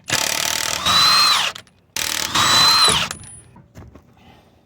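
Impact wrench hammering 21 mm lug nuts loose on a car wheel, in two bursts, each with the motor's whine rising and then dropping off as the trigger is released.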